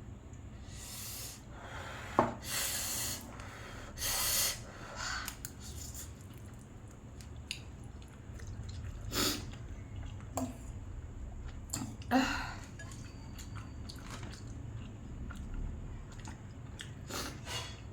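A person chewing spicy ramen noodles, with a few sharp, breathy exhales in the first five seconds and scattered short mouth clicks and smacks, typical of a mouth burning from chilli.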